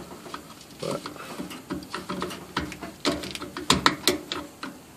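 A flathead screwdriver clicking and scraping against the plastic fuel-line quick-connector on a fuel pump module as the line is pried loose. It makes a run of irregular sharp clicks, the loudest few a little past halfway.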